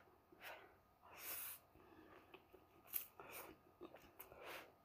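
Faint slurping and chewing of pancit noodles eaten with chopsticks, a few short soft sounds about a second apart.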